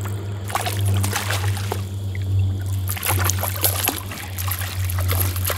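A hooked fish thrashing and splashing at the surface as it is scooped into a landing net, in two bouts of splashing, with a steady low hum underneath.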